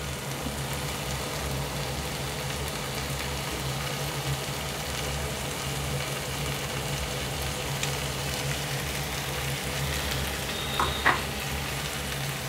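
Chicken and dry-roasted masala frying in oil in a kadai: a steady sizzle over a low, even hum. Two short knocks come near the end.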